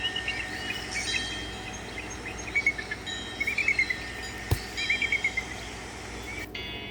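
Samsung Galaxy S3 nature-sound ringtone: clusters of quick bird-like chirps, repeating about every second over a faint steady bed, with a single click about two-thirds of the way through.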